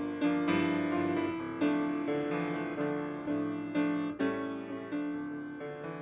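Piano playing a slow instrumental interlude between verses of a hymn, notes and chords struck about every half second to second, each ringing and fading.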